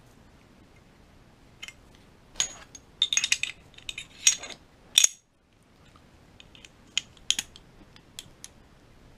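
Clicks and light metal rattles of a Smith & Wesson M&P 2.0 Compact pistol's slide and parts being handled and fitted together during reassembly, busiest between about two and five seconds in, then a few single clicks.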